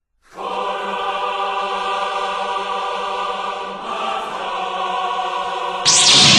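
A choir holding a sustained chord in the soundtrack music, coming in a moment after silence. Near the end a louder lightsaber sound effect cuts in with a sweep falling from high to low.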